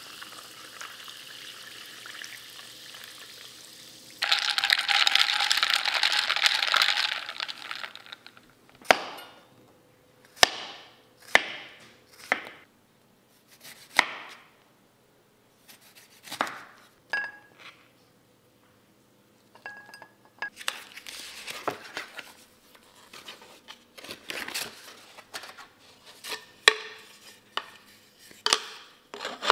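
Carbonated water poured over ice in a glass, hissing and fizzing, loudest for a few seconds early on. Then a chef's knife slicing a lemon on a wooden chopping board, about six sharp chops. Near the end, light wooden knocks and clatter as bamboo stand pieces are handled.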